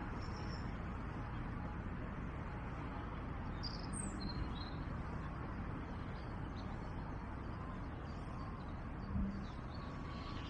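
Steady outdoor background noise with a few faint high bird chirps, near the start and around four seconds in. A soft low thump comes about nine seconds in.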